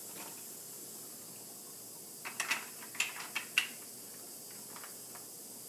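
A quick cluster of light clicks from plastic game pieces being handled and set in place, starting about two seconds in, with a few fainter clicks after, over a steady background hiss.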